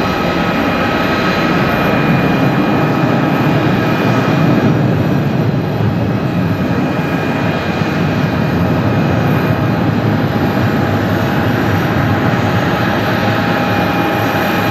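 Boeing 737-800 BBJ2 climbing out after takeoff: steady noise of its twin CFM56-7B turbofan engines, with several steady whining tones over the broad jet noise.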